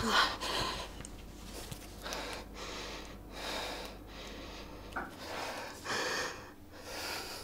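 A woman's distressed breathing: repeated gasping, sniffing breaths, with a short click about five seconds in.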